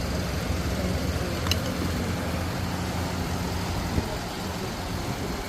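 Steady low hum of an engine or motor over an even background noise, with a faint click about a second and a half in and another near the end.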